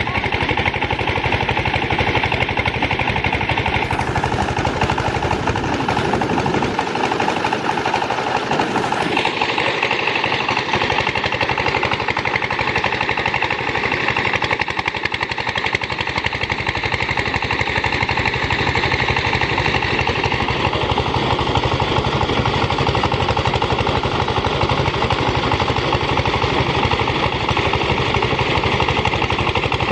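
Engine-driven rice threshing machine running steadily without a break, with a fast, even chugging pulse.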